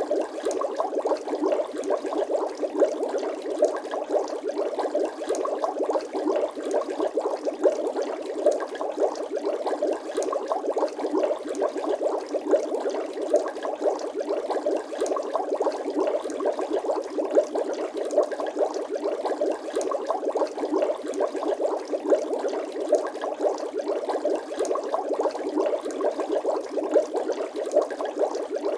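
Bubbling water sound effect: a steady, dense stream of small bubble pops and gurgles, mid-pitched with no deep tones, going on without change.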